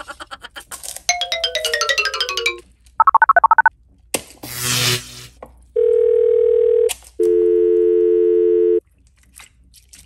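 A string of sound effects: rapid clicking with a descending run of stepped tones, a brief telephone ring trill, a noisy whoosh, then two steady telephone dial tones, the second a two-note dial tone about a second and a half long.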